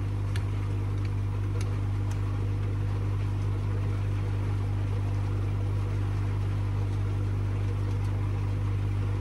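Steady low electric hum of pond pump equipment running, with a few faint light clicks in the first couple of seconds as the plastic slide valve and its rubber seal are handled.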